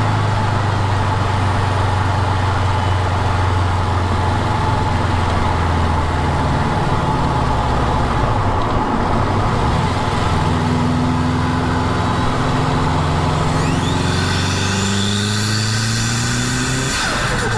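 Turbocharged tuner car engine running at held revs, with a high-pitched whistle rising near the end as the turbo spools up.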